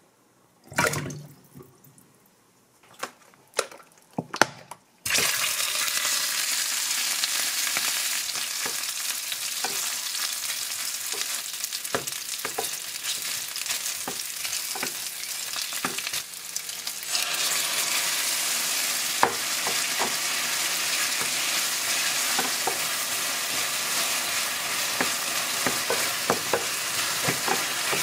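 Rice cakes and sausages frying in a pan, a steady sizzle with a wooden spatula clicking and scraping as they are stirred. The sizzle starts suddenly about five seconds in, after a few light knocks, and grows fuller after about 17 seconds.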